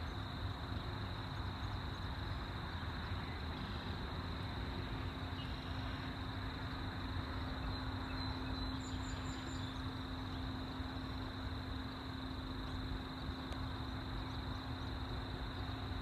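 Summer field ambience: a steady, unbroken high insect drone over a low rumble and a steady low hum, with a few faint high chirps around the middle.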